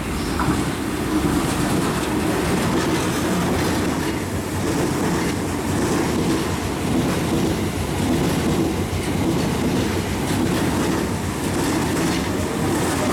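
JR East E001 series 'Train Suite Shiki-shima' passing close by through a station without stopping: loud, steady wheel-on-rail noise as its long train of cars runs past.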